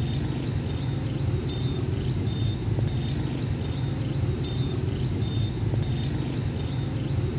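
Steady low outdoor rumble, with faint short high chirps repeating about two or three times a second.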